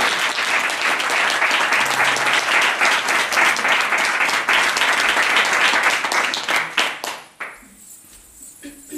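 Audience applauding, dense clapping that dies away about seven seconds in.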